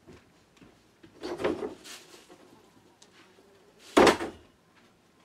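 Off-camera handling noises, then one loud, sharp knock about four seconds in.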